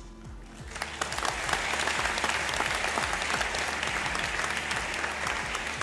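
Audience applauding, starting about three-quarters of a second in and going on at a steady level.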